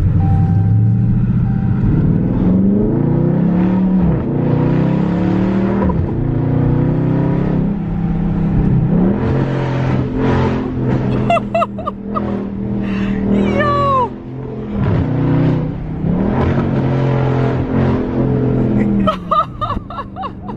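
Dodge Challenger 392 Scat Pack's 6.4-litre HEMI V8, exhaust with the mid muffler deleted, revved in neutral again and again. The pitch climbs and drops back several times over a steady low rumble.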